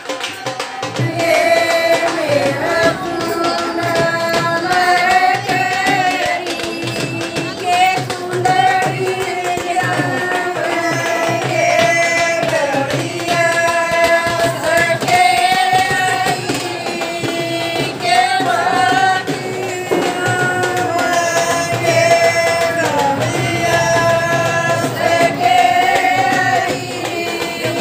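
Women singing a Haryanvi wedding folk song (bhat geet), a single melody line in long held notes, over a steady drum beat.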